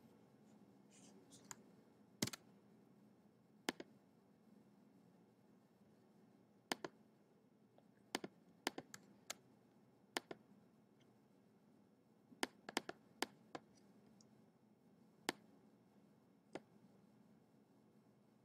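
About fifteen sharp computer mouse clicks, scattered singly and in quick runs of two to four, over faint room hiss.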